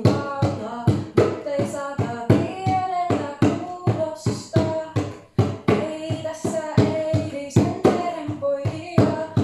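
A woman singing a Finnish song while playing a djembe with her bare hands: a running pattern of drum strokes under the sung melody.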